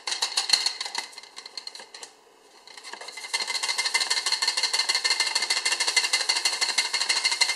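Hand-operated flour sifter being worked, its mechanism clicking rapidly as flour is sifted into batter. The clicking stops briefly about two seconds in, then resumes steadily.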